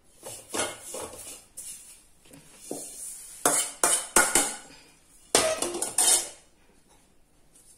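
A steel skimmer ladle scraping and clinking against an aluminium bowl as dried drumstick leaves are stirred and scraped out of it, with a run of sharp metal clinks in the middle.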